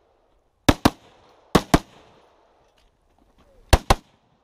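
Rifle fired in three quick double taps, each pair of shots a fraction of a second apart, with a short pause between pairs.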